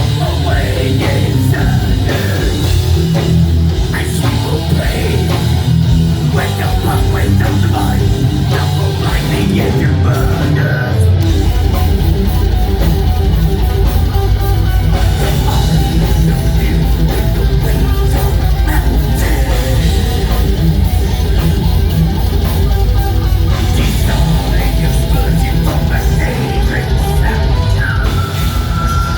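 Live rock band playing loudly: guitar and drum kit, the low end growing fuller about eleven seconds in.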